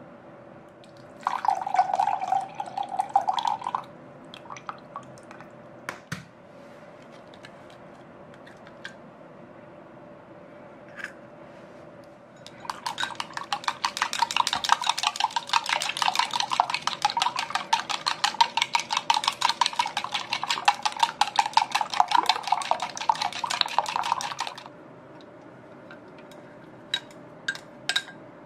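Egg and cream being beaten by hand in a glass measuring jug, the utensil clicking rapidly and evenly against the glass for about twelve seconds. A shorter burst of clatter comes about a second in, and there are a few light ticks near the end.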